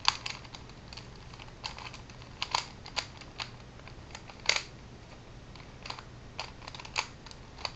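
A homemade cutter cube, a modded 3x3 twisty puzzle, clicking and clacking as its plastic layers are turned quickly to scramble it. The clicks come at uneven intervals, with a few louder clacks among them.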